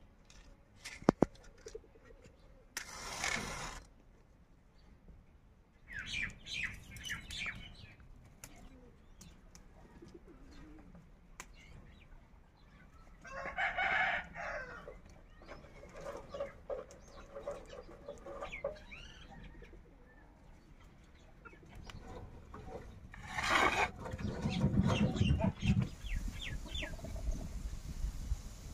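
A match struck on a matchbox with a sharp scrape about a second in, then scattered clucks of chickens and other bird calls, and a louder burst of noise near the end.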